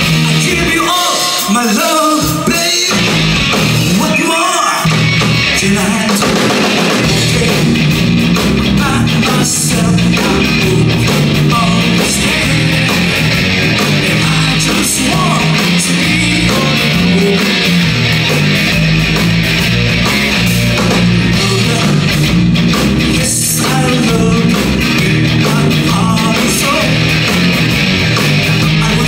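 Live band playing a blues number on electric guitars, bass guitar and drum kit. It starts sparse with a wavering lead line, and the full band comes in about five seconds in.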